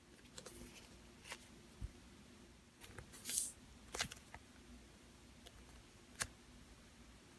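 Faint handling noises as a soft foam squishy toy is squeezed and twisted in the hands: scattered light clicks and taps, with a brief rustle about three seconds in.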